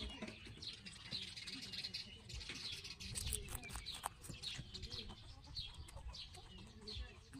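Small birds chirping, short falling chirps repeating every half second or so, over soft crunching and clicking as rabbits bite and chew cucumber sticks.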